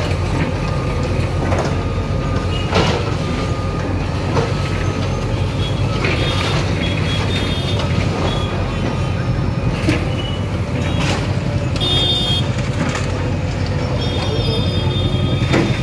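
JCB backhoe loader's diesel engine running under load as its bucket tears down a brick shop front, with several knocks and crashes at irregular intervals.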